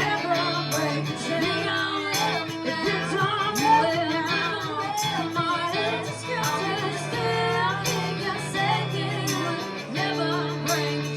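Live rock band playing loudly, with singing or wavering lead lines over a steady bass.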